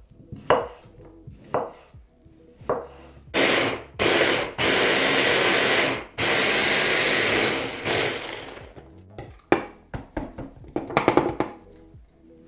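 A few knife cuts on a board, then a small electric kitchen appliance, a juicer, runs in three spells of one to two seconds, juicing fresh ginger, followed by a few clicks and knocks.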